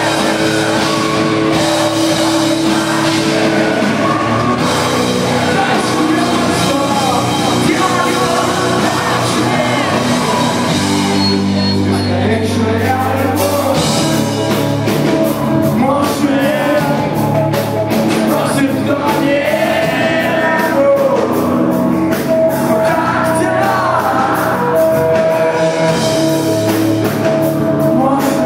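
A rock band playing live, with drums, sustained bass and guitar, and a singer's voice.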